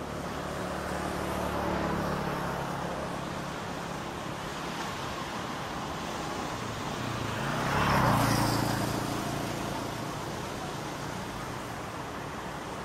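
A motor vehicle's engine passing close by, swelling to its loudest about eight seconds in and then fading, over the steady wash of small waves breaking on a beach. A fainter engine hum rises and falls near the start.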